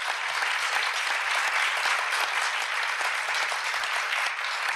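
Audience applauding steadily, many people clapping at once in an auditorium at the end of a lecture.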